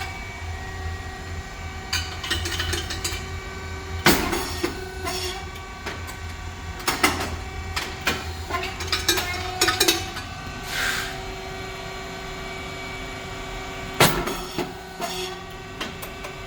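SYP8502 puffed rice cake machine running, with a steady hum from its hydraulic pump motor and fan. Sharp bangs sound about four seconds in and near the end, about ten seconds apart, with lighter mechanical clatter and a short hiss between them as the moulds cycle.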